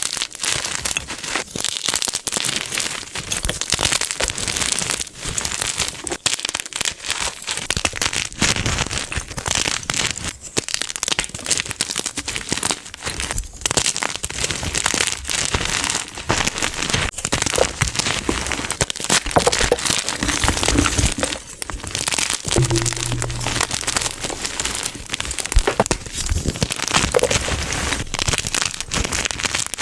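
Blocks of gym chalk being crushed: a dense, continuous crunching and crackling from many small breaks, with no pause.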